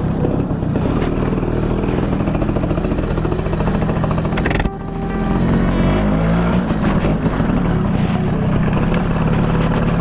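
Two-stroke motorcycle engine running as the bike rides along, picked up close by a handlebar camera. About halfway through the sound breaks off and drops, then the engine pitch climbs again as it pulls.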